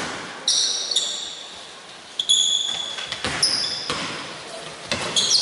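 Basketball shoes squeaking on a hardwood court: several short, high squeaks as players cut and stop, mixed with a few basketball bounces echoing in a large hall.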